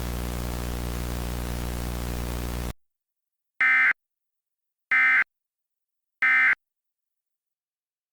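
Steady radio hiss with a low hum that cuts off after about two and a half seconds, followed by three short, identical screechy data bursts about a second and a quarter apart: EAS SAME end-of-message tones that signal the alert is over.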